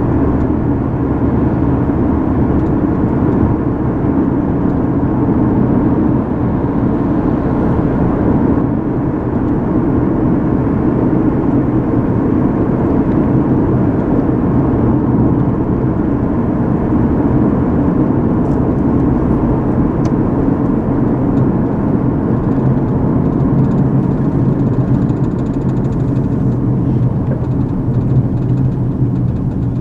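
Steady road noise of a car driving, heard from inside the cabin: tyre and engine hum with no sudden events.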